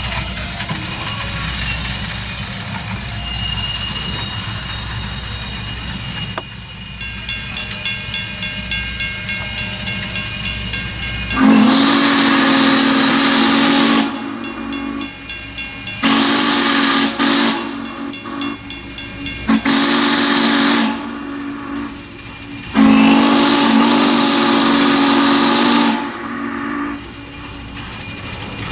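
Norfolk & Western steam locomotive blowing its deep, chord-like steam whistle for a grade crossing: long, long, short, long, with steam hissing in each blast. Before the whistle, only the train running is heard.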